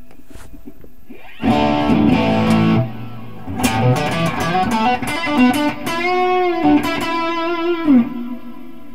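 Electric guitar played through a Marshall amp with only a Hall of Fame reverb pedal switched in. A strummed chord rings out about a second and a half in, then a single-note lead line with bends follows, ending on a long wavering held note that bends down near the end.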